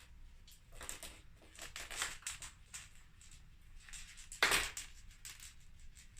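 A pet busy with a fetched toy: a string of short scraping and rustling noises, the loudest about four and a half seconds in.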